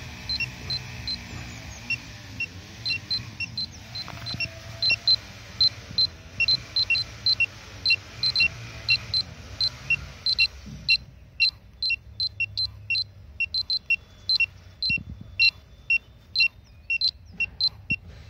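Polimaster PM1703GNA radiation pager beeping in short, irregular pips that come faster from about ten seconds in, its alarm on a rising dose rate as it nears radioactive granite. A low rumble underlies the first half.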